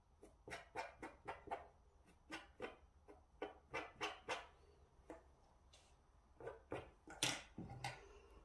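Short, irregular scratchy strokes of a plastic comb and fingers working through macrame cord fringe. A louder sharp knock near the end as the comb is set down on the table.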